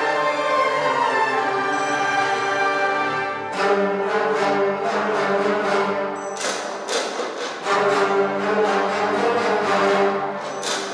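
Chinese traditional orchestra, with plucked lutes, bowed strings, cellos and double basses, playing held chords. About three and a half seconds in, sharp repeated strikes come in and continue over the sustained notes.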